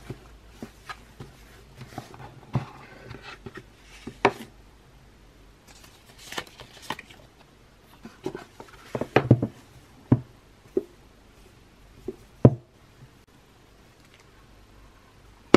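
Cardboard packaging and a sunglasses case being handled and opened by hand: scattered light taps, scrapes and rustles, with a few sharper knocks about nine to ten seconds in and another about twelve and a half seconds in.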